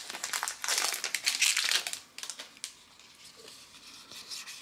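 Crinkling and rustling of a Magic: The Gathering booster pack being handled, dense for the first two seconds, then fainter card handling.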